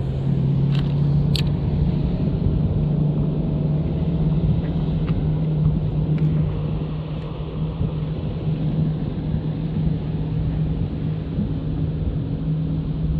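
Electric trolling motor on a bass boat running steadily, a low hum under a rumble of water and wind, with a couple of faint clicks in the first second or two.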